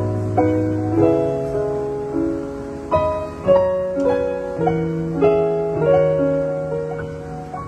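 Piano playing slow, gentle chords over held bass notes, with no singing.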